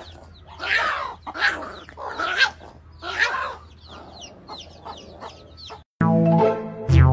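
A hen clucking and squawking in short calls, with many quick, high, falling chirps between them. About six seconds in the calls stop and music begins.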